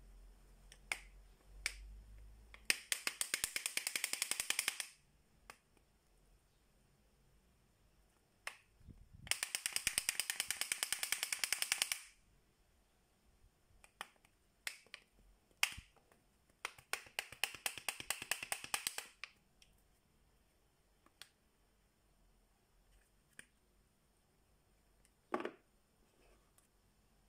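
A folding transformer cube being flipped through its folds by hand: three runs of rapid clicks, each about two seconds long, from its panels snapping over, with single clicks between the runs. Near the end comes one fuller knock as the cube is set down on a wooden shelf.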